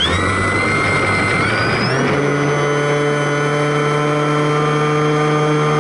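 Electric motor and propeller of an RC Sbach 342 model aerobatic plane spooling up for the takeoff roll, heard from a camera inside the model's cockpit. The whine rises over the first two seconds, then holds steady at a high pitch near full throttle.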